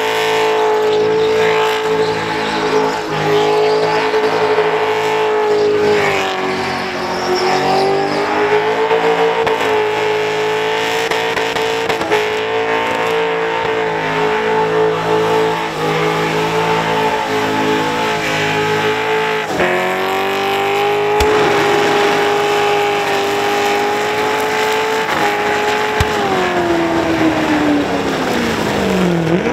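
Supercharged Holden Commodore's engine held at high revs through a long burnout, the spinning rear tyres squealing. The revs dip briefly about six seconds in and fall away over the last few seconds.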